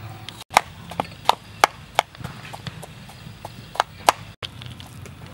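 A metal spoon clinking against a stainless steel bowl while mashing boiled potatoes: a quick run of sharp knocks in the first two seconds, then two more near the end, over a low steady hum.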